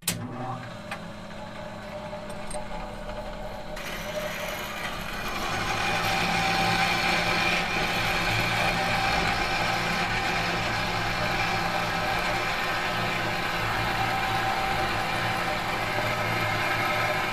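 A machine motor running with a steady hum, growing louder over the first five or six seconds and then holding steady.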